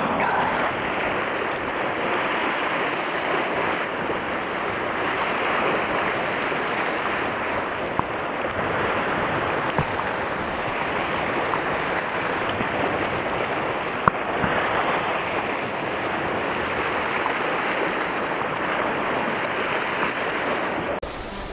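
Sea surf washing against a rocky shore, a steady rushing noise, with a few small sharp knocks, the clearest about fourteen seconds in.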